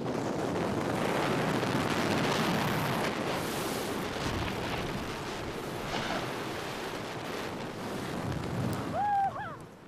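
Wind rushing over a helmet-mounted camera's microphone as a BASE jumper free-falls off a cliff: a steady, loud rushing noise. Near the end, a person gives a short shout.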